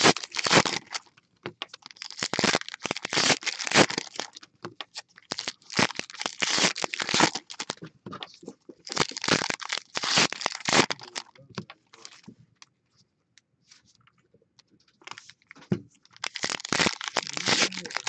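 Trading card pack wrapper being torn open and crinkled by hand close to the microphone, in several loud bursts with a quieter stretch of small ticks in the middle.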